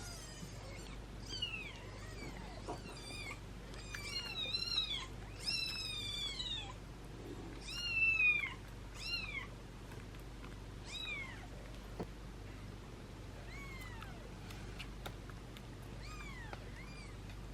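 Young kittens mewing: a string of short, high-pitched cries, each rising and then falling in pitch. The calls come thick and overlapping in the first half, loudest around the middle, then sparser toward the end.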